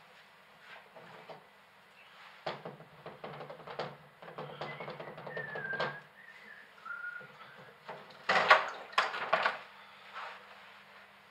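Hands handling fish food at an aquarium: scattered rustling and clicking, a short wavering whistle-like tone in the middle, and a louder cluster of clattering noises near the end as the hand reaches the top of the tank. A low steady hum runs underneath.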